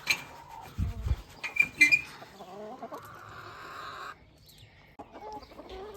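Lohmann Brown hens clucking in short, varied calls, one loud high call just under two seconds in. There is a low thump about a second in.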